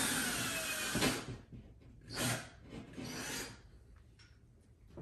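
Power drill running into the wall with a whine for about a second, then stopping, followed by two short bursts of drilling about a second apart.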